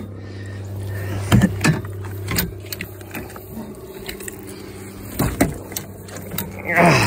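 A big flathead catfish being handled in a landing net on a boat deck: scattered knocks and thumps of the net frame and fish against the deck, with a louder scrape near the end, over a steady low hum.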